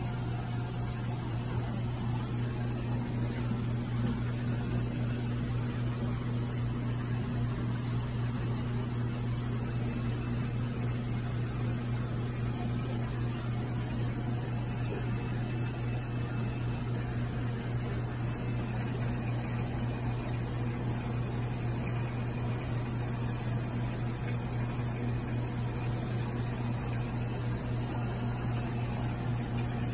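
Aquarium pumps and filtration equipment running: a steady low hum with a fainter higher overtone over a constant hiss.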